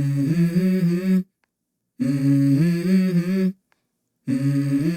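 A voice humming the same short melodic phrase three times, each about a second and a half long, with dead silence between them.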